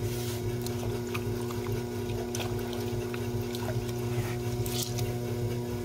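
Motor of an electric potter's wheel humming steadily while wet clay is shaped on it, with a few short wet swishes of slip-covered hands on the spinning clay.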